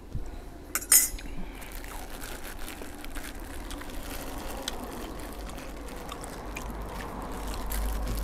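Sounds of eating at a table: a sharp clink of a spoon or dish about a second in, then faint sipping and chewing over a steady low rumble that grows louder near the end.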